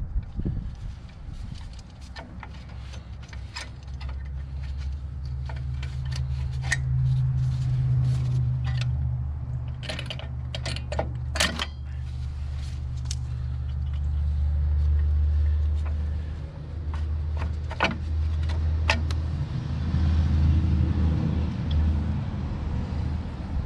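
Low steady rumble that swells and fades, with scattered sharp metallic clicks and clinks of hand tools and brake parts being worked on.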